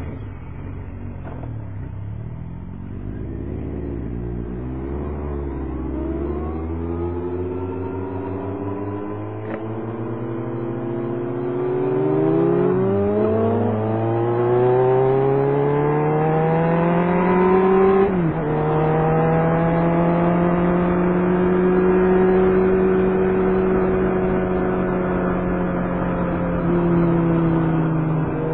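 Kawasaki Concours 14 inline-four motorcycle engine pulling away and accelerating, its pitch rising through the gears. It shifts up twice, a little before halfway and about two-thirds of the way through, then settles to a steady pitch at cruising speed.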